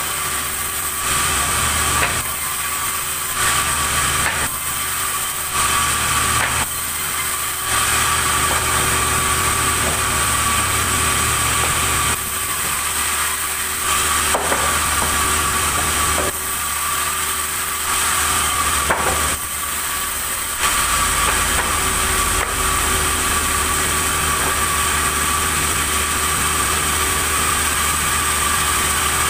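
Sawmill saw and its drive motor running: a steady low hum under a high, even saw whine, with the sound changing every second or so during the first eight seconds and again around the middle as the blade works through wood.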